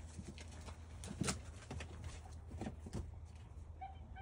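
Golden retriever puppies' paws scrabbling up a turf-covered ramp and through a doggie door: scattered faint knocks and scuffs over a low steady hum, with a brief high puppy squeak near the end.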